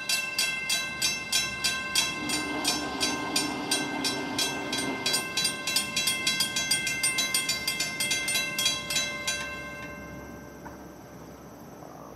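Grade crossing warning bell ringing steadily, about three strikes a second, while the gates lower; it stops about nine and a half seconds in, once the gates are down. In the middle, for about three seconds, a distant train horn sounds a low chord.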